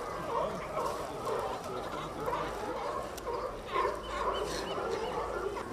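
A crowd of California sea lions barking over one another, many short overlapping calls following one after another several times a second.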